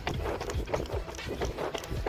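A runner's footsteps striking the ground in a fast, even rhythm, about three strides a second, at a cadence near 189 steps per minute.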